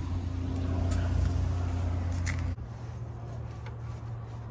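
A car engine idling steadily. About two and a half seconds in, the sound cuts abruptly to a quieter, slightly higher steady hum. Two light clicks come before the cut.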